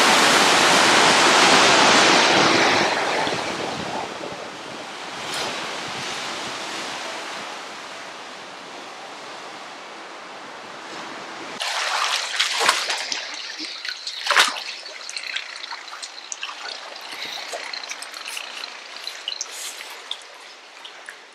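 Sea waves washing in over a rocky shore: a loud, even rush that slowly fades. About halfway through it cuts to quieter splashing and trickling of water in a swimming pool, with a few sharp splashes.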